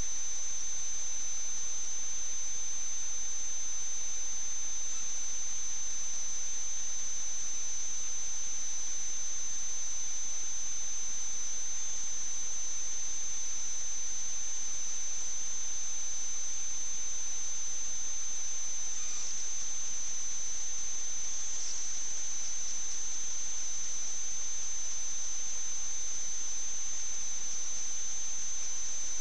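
Steady high-pitched whine over a faint hiss, with no other sound: electrical noise in a sewer inspection camera's recording.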